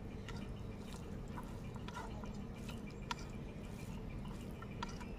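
Faint eating sounds: fingers squishing and mixing rice with cooked greens on a steel plate, with scattered small clicks, over a low steady background noise.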